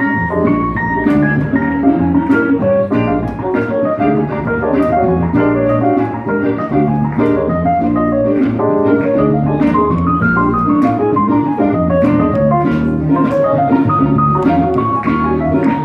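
Small jazz-funk band playing live: a stage keyboard on an organ sound carries held chords and a moving line, over a double bass, with a steady beat of sharp strokes.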